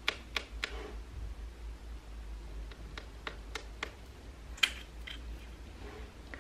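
Light clicks and taps of plastic lip gloss tubes and an applicator wand being handled: a few in the first second, a quick run of about five around three seconds in, and the loudest click about four and a half seconds in.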